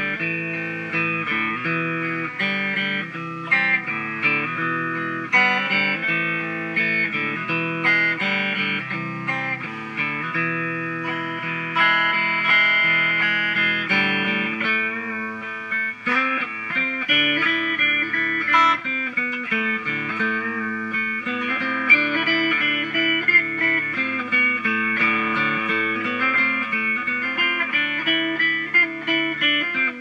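Stratocaster-style electric guitar being played, a melody of notes that change every fraction of a second.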